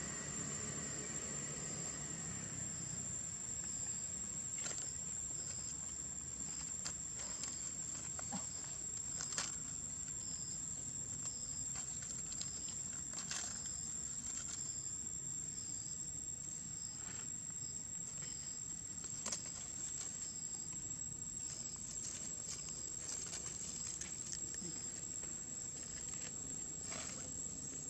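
Insects calling steadily: a constant high-pitched drone with a regular chirp repeating about one and a half times a second, broken by scattered soft clicks.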